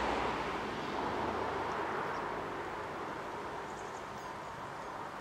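Diesel-hauled train running past, its engine and rail noise a steady sound that slowly fades as it draws away. A few faint bird chirps come in the second half.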